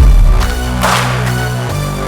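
Background music: an electronic track with heavy bass notes and a steady beat.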